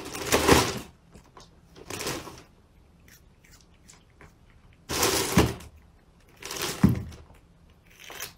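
Black plastic bag rustling in a few short bursts as a cat pokes at it, with a couple of soft thumps about five and seven seconds in.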